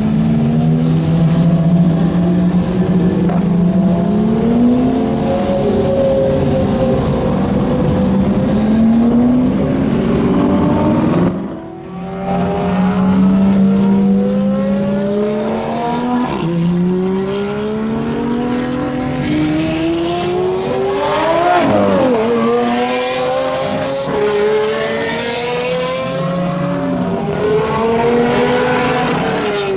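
Several supercar engines idling and revving together, their overlapping engine notes rising and falling. There is a short drop in level about a third of the way through.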